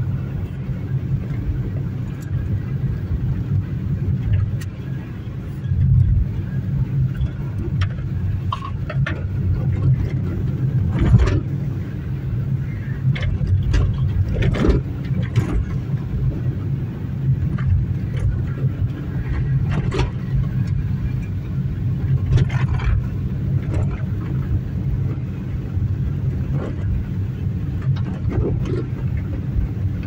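Car driving on an unpaved dirt road, heard from inside the cabin: a steady low rumble of engine and tyres, with scattered knocks and rattles from the rough surface.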